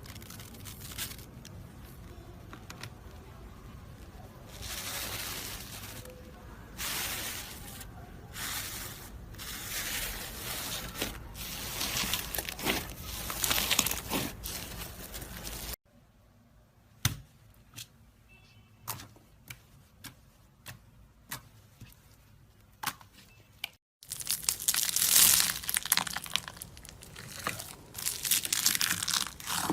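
Slime being stretched and squeezed, with crackling, tearing-like hisses and sharp pops and clicks. The sound changes abruptly twice as one clip cuts to the next: the middle part is quieter, with single sharp pops, and the last part is louder, dense crackling.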